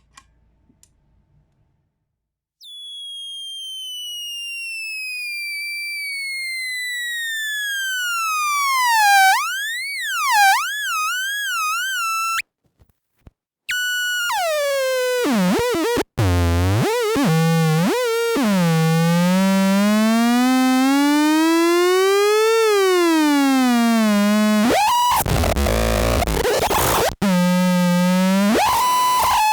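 Analog noise synth (Lefty's Sound Lab Rumble Noise) playing a buzzy tone full of overtones, after a couple of faint clicks. The tone starts high about two and a half seconds in, slides down, wobbles and cuts off abruptly. After a short gap it returns low, glides slowly up and back down, breaks into a stretch of harsh noise, and settles on steady tones near the end.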